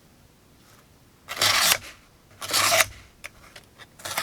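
Bestech Muskie folding knife's D2 steel blade cutting through cardboard in two quick rasping strokes, each about half a second long, about a second apart, followed by a few light clicks near the end. The blade cuts very easily.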